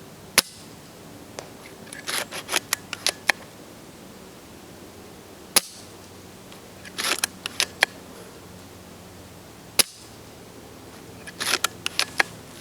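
JG Bar-10 spring-powered bolt-action airsoft sniper rifle fired three times, each shot a single sharp snap. Each is followed about a second and a half later by a quick run of clicks as the bolt is worked to cock it and chamber the next BB.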